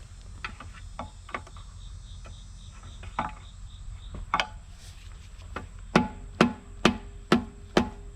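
Hand tools clicking and tapping on the mulcher's hydraulic fittings. About six seconds in, a steady run of sharp, ringing metal knocks starts, about two a second, as a fitting is worked loose.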